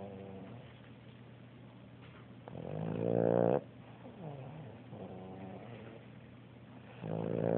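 Boston Terrier snoring in her sleep, a rasping snore on each breath: one long snore swells louder and stops short about three and a half seconds in, a softer one follows, and another loud one starts near the end.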